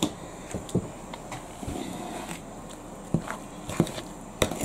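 A spoon stirring thick cornbread batter in a mixing bowl, with irregular light clicks and taps of the spoon against the bowl and soft scraping between them.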